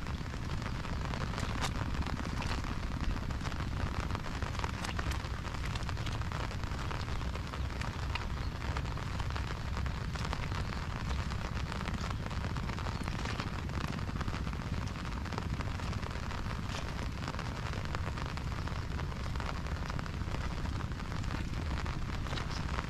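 Steady rain, with frequent sharp ticks of close drops over an even hiss and a low rumble underneath.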